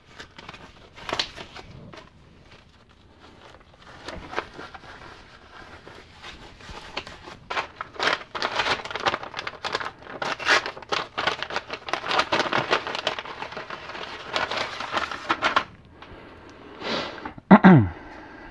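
Disposable gloves being pulled on, then a paper packet of long wooden-stick cotton swabs being torn open and rustled, a dense crinkling in the middle. A brief falling squeak near the end.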